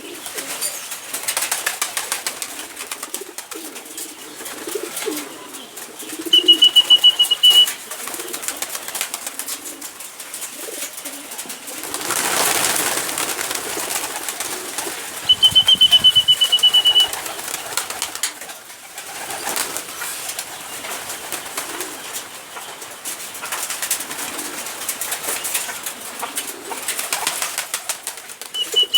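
Poultry birds at a feeder: low calls and a patter of small clicks, with three short high trills, the loudest sounds, coming at intervals.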